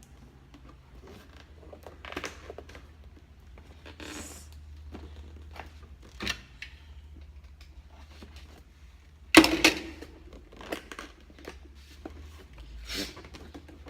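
Cardboard box being opened and handled: flaps, packaging and contents rustling and scraping with scattered clicks, and one loud sharp knock about nine seconds in.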